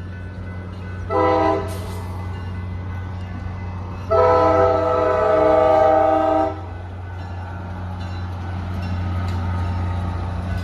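Locomotive air horn sounding a chord of several notes: a short blast about a second in, then a long blast from about four seconds, the end of a grade-crossing warning sequence. Under the horn a steady low diesel rumble runs throughout and grows slightly louder near the end as the train approaches.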